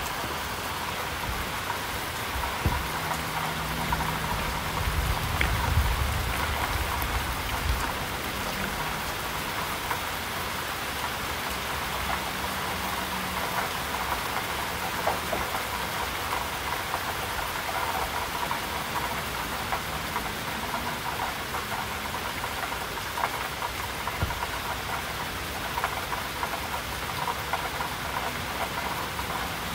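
Steady rain falling, with scattered drops pattering. A low rumble swells and fades between about three and eight seconds in.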